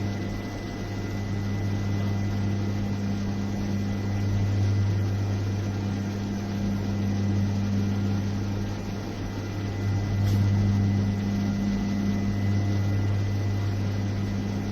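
Steady low mechanical hum with no breaks.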